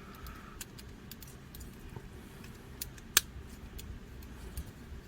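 Scattered small clicks and taps of a transforming robot toy's parts being handled and pushed into place, with one sharper click about three seconds in.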